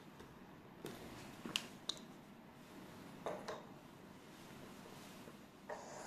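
Small objects set down on a wooden tabletop: a laptop, a metal clip, a plastic tripod quick-release plate and a metal digital caliper, giving about six short light knocks and clicks, the sharpest about one and a half and two seconds in.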